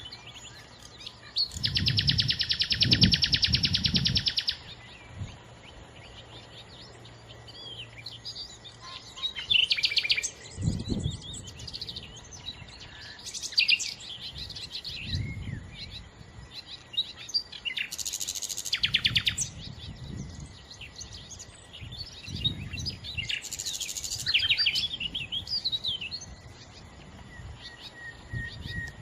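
Common nightingale singing a varied song of separate phrases, mixing rapid trills, clear whistles and chirps, with short pauses between. The loudest phrase is a long, fast, buzzy trill lasting about three seconds near the start. Low muffled rumbles sit under several of the phrases.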